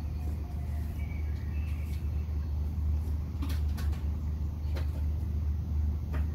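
Persian cat eating from a stainless-steel bowl, a few sharp clicks against the metal over a steady low hum.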